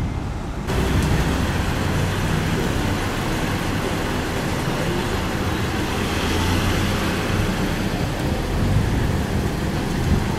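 Road traffic on a town street: vehicle engines running with a steady low hum under road noise. It sets in abruptly just under a second in.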